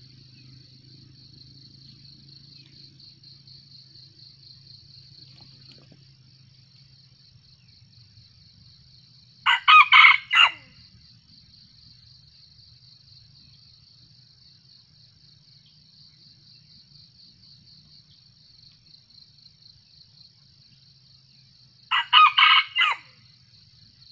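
Red junglefowl rooster crowing twice, about twelve seconds apart, each a short crow lasting about a second, over a steady high chirring of insects.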